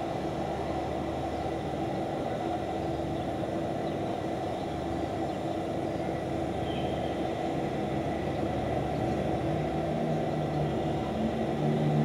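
Steady city background hum of distant traffic, with a constant low drone running under it.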